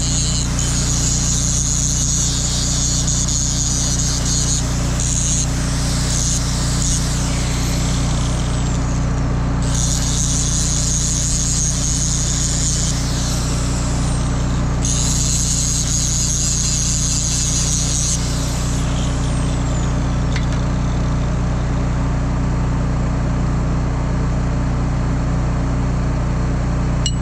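Angle grinder grinding steel on a disc-harrow gang in several bursts. After each of the later bursts its whine falls away as it spins down, and the grinding stops about two-thirds of the way through. Under it all a steady low engine drone runs on.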